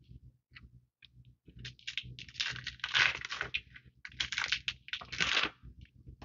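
Foil booster pack wrapper crinkling and tearing in several noisy bursts, loudest about three seconds in and again just after four seconds.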